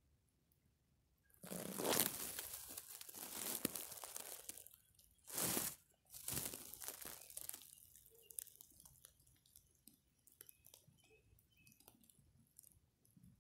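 Close rustling and crunching right at the phone's microphone, of the kind made by dry grass or handling. It comes in three bouts over about six seconds, the last fading away, and is followed by faint scattered crackles.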